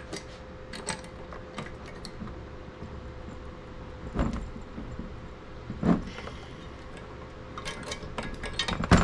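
Scattered clinks and knocks of small metal hardware and an Allen wrench being handled while bolts are tightened down. There are louder knocks about four and six seconds in, and a quick run of clinks near the end.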